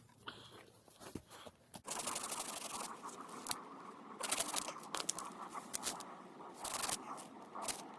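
Rough crunching and scraping with many sharp clicks, starting about two seconds in: wood chunks and forest litter being handled and shifted.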